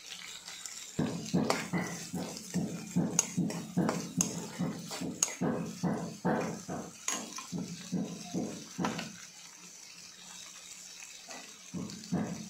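Metal slotted spoon stirring and scraping green chillies and coriander leaves around a nonstick wok, in quick repeated strokes about two or three a second. The strokes pause about nine seconds in and start again near the end.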